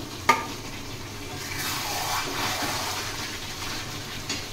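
Fried potatoes tipped into a kadai of chicken simmering in oil and masala: a sharp clack near the start, then a sizzle that swells for a couple of seconds as they land in the hot oil and eases off.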